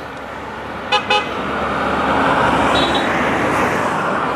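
A motor vehicle passing on the road gives two short horn toots about a second in, then its noise swells to a peak and eases off as it goes by.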